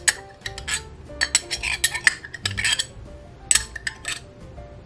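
Metal table knife scraping fruit spread out of a glass jar and clinking against the jar: sharp clinks near the start and again near the end, with a run of quick scrapes in between. Soft background music underneath.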